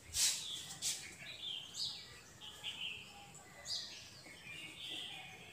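Small birds chirping in the background, short high chirps on and off. A brief knock comes right at the start.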